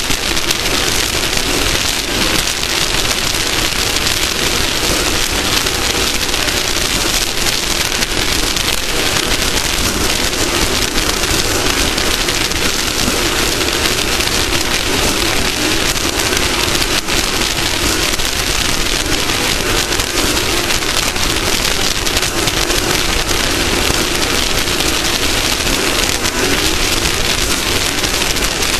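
Off-road race vehicle running at speed: a steady, loud rush of wind and terrain noise with a wavering engine drone underneath.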